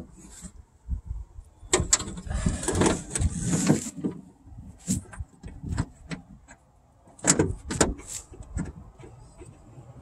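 Irregular clicks, knocks and scraping of metal parts inside a car door as the door handle's bolts are fitted by hand, with a patch of rustling about two to four seconds in.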